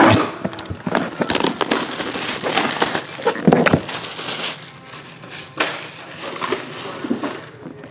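A cardboard trading-card box being unwrapped and handled. A dense crackle of crinkling wrapper and rustling cardboard runs for about three seconds, then gives way to sparser scrapes and taps of the box.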